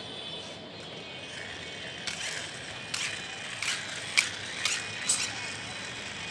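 Hand-pushed plastic toy car's gears ratcheting as it is worked by hand on a plywood board: a series of six or seven sharp clicks, uneven and about half a second apart, starting about two seconds in.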